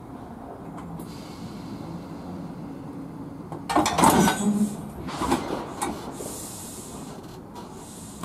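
Two Class 321 electric multiple units coupling. The couplers meet about four seconds in with a loud clanking impact, followed by more clanks and rattles for a couple of seconds over a steady low hum. A short hiss comes near the end.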